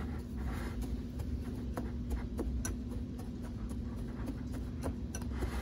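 Metal pastry blender cutting margarine into a dry crumble mixture in a glass bowl: irregular scraping with light clicks as the blades strike the glass.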